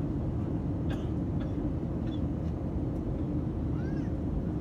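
Steady low drone of an airliner cabin, with a few faint, short high-pitched squeaks on top, one a brief rising-then-falling note near the end.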